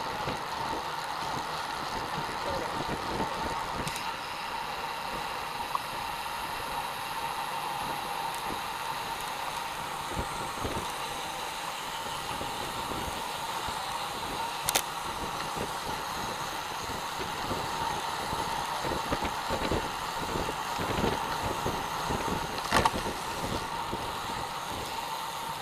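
Wind buffeting the microphone of a camera mounted on a moving road bicycle, over the steady rush of riding on asphalt, with two short sharp clicks, about midway and near the end.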